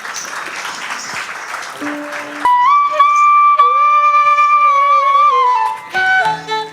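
Accompanying music for a classical Indian dance drama: after a rushing noise for the first couple of seconds, a flute comes in loudly on one long held note that slides down near the end, followed by shorter notes over low held tones.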